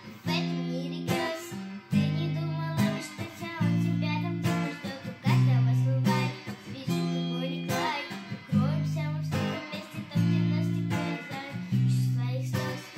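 Acoustic guitar playing chords with a bass note, a new chord about every second and a half, accompanying a girl singing.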